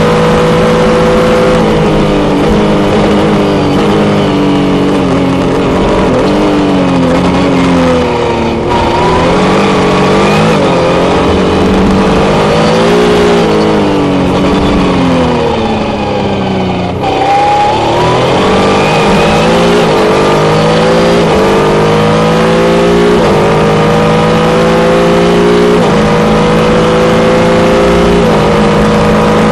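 Jaguar engine of a JP-LM sports prototype heard from the cockpit, pulling hard. The revs fall in steps through downshifts under braking into a slow corner, with brief lifts off the throttle, then climb again through the gears with an upshift every few seconds.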